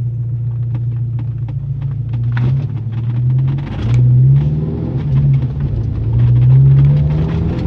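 Volkswagen Gol G3's 1.0 four-cylinder engine pulling away, its note rising in pitch about four times and dropping back between rises as it goes up through the gears, with scattered light knocks and rattles.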